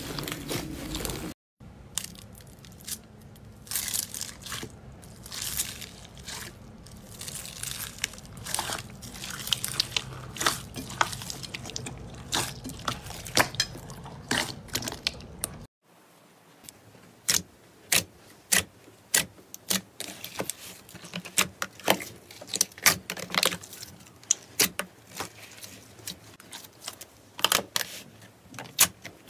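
Slime being squeezed and pressed by hand, giving crunchy crackles and sharp pops. Cuts abruptly twice, about a second and a half in and about halfway through; the last part is a quick run of sharp clicks.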